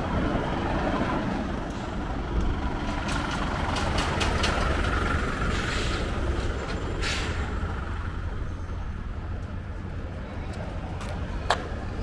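Heavy diesel truck engine rumbling in traffic, with a short hiss of air about seven seconds in and a sharp knock near the end.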